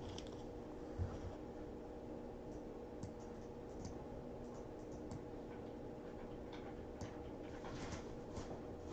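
Faint taps, clicks and soft rustles of trading cards being handled and flipped through by hand, over a faint steady hum.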